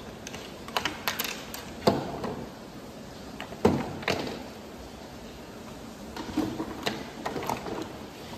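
Clatter and knocks of a small model aircraft being taken apart by hand on a wooden workbench: irregular clicks as parts are unfastened, with two sharper knocks about 2 and 3.7 seconds in as pieces are set down, and a run of lighter taps near the end.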